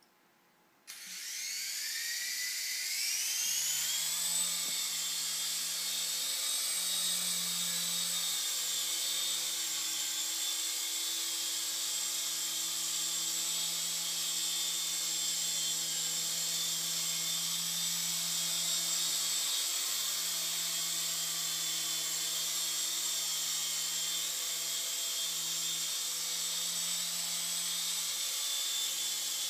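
Mini RC helicopter's electric motors starting about a second in, the whine rising in pitch over a few seconds as the rotors spin up, then holding a steady high whine with a low rotor hum underneath as it flies.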